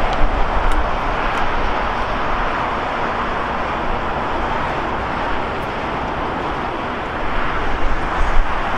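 Steady rushing roar of jet airliner engines across the airfield, even throughout, with no single aircraft passing close.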